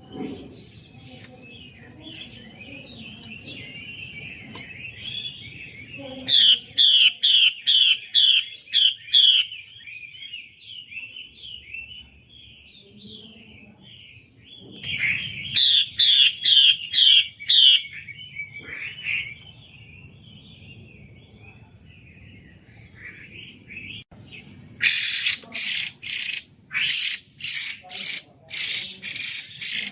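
Female hwamei (Chinese hwamei songbird) calling loudly and clearly. Soft twittering chatter is broken three times by runs of loud repeated notes, about two or three a second, the longest run near the end.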